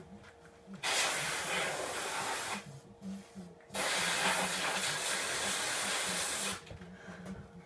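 Aerosol spray-paint can spraying black paint in two sustained bursts of hiss, the first about two seconds long and the second nearly three, each cut off sharply when the nozzle is released.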